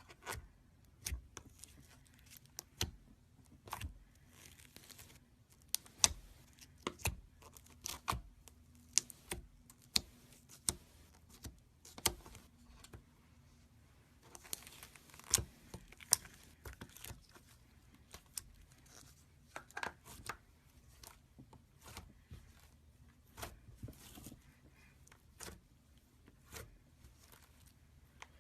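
Gold slime being worked by hand, giving off irregular sharp pops and crinkly crackles, about one or two a second.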